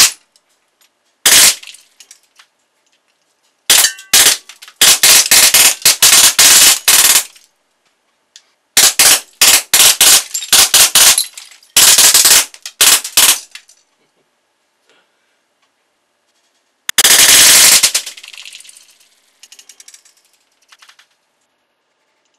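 Bursts of rapid full-auto fire from a Baikal Drozd CO2 BB machine gun, with BBs smacking into the cardboard target. There is a single shot near the start, then several strings of rapid shots, and a last dense burst that trails off into scattered rattling.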